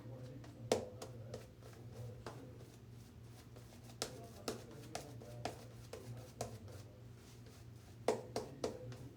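Shaving brush being loaded from a tub of shaving soap: irregular light taps and clicks of the brush against the soap and tub, about one or two a second, over a steady low hum.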